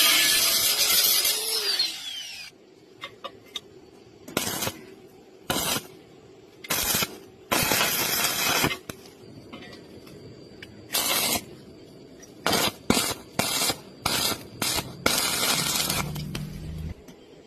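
Metalworking noise. A power tool runs loudly for about two seconds, then winds down with a falling whine. It is followed by a string of short, harsh bursts of metal noise, each under a second, with pauses between them.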